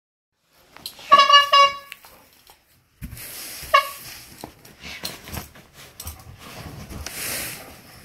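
Old-fashioned rubber-bulb bike horn squeezed by a dog: two quick honks about a second in, then a shorter honk near four seconds. Rustling of a blanket and scattered light knocks follow as the dog plays.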